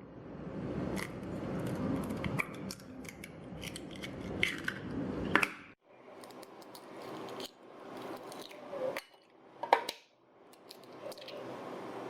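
Kitchen handling noise: scattered clicks, taps and scrapes of utensils, containers or packaging being worked by hand. It comes in short stretches cut off abruptly several times.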